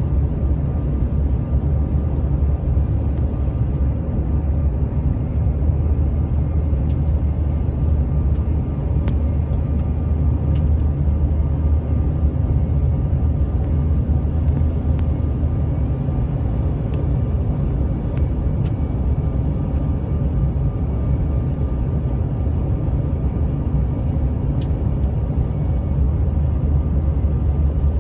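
Steady cabin noise aboard a Bombardier CRJ-700 airliner on approach: a low rumble of airflow and its two tail-mounted turbofan engines, with faint steady whining tones above it. A few faint clicks come and go.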